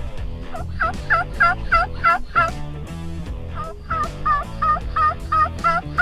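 Turkey yelping in two runs of about six evenly spaced notes each, roughly three notes a second, with a short pause between the runs. Background music plays underneath.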